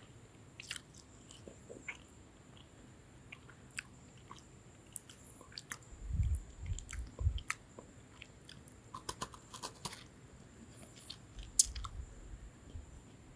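Lemon sandwich biscuit being bitten and chewed: scattered sharp crunches and clicks, with heavier chewing about six seconds in and again near the end, where the sharpest crunch falls.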